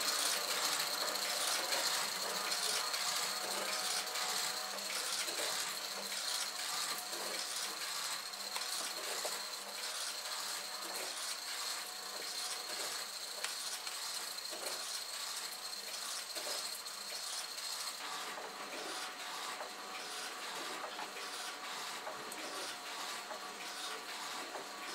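Kinetic sculpture built from old machine parts running: a dense, rapid mechanical clicking and ratcheting of gears and linkages, with a steady high whine that stops about eighteen seconds in.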